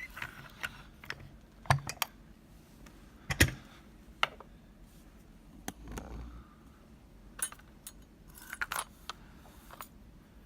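Small metal clicks and clinks from a euro cylinder lock and picking tools being handled, scattered irregularly, with two sharper knocks at about two and three and a half seconds in.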